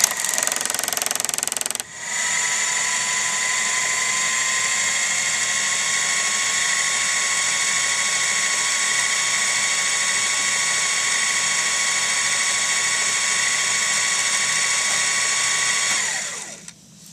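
Electric sewing machine running fast on its pedal to wind a bobbin: a steady motor whine that stops briefly just under two seconds in, then runs on evenly with its tone creeping slightly higher until it stops about a second before the end.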